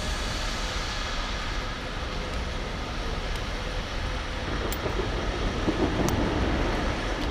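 Small petrol engine of an ActSafe powered rope ascender running steadily, with a few light metallic clicks from the rigging hardware.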